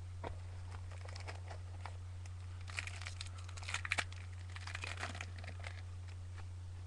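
Foil trading-card pack wrapper crinkling and tearing as it is ripped open, in two spells of crackle about three and five seconds in. A steady low electrical hum runs underneath.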